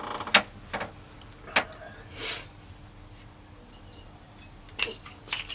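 A few scattered light clicks and knocks, the sharpest and loudest near the end: a bottle cap and bottles being handled and set down on a bar.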